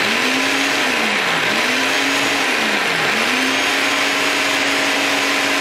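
Electric food processor running, loud, puréeing yogurt, mayonnaise and fresh herbs into a creamy dressing. Its motor pitch sags and recovers twice, then holds steady as the mix smooths out.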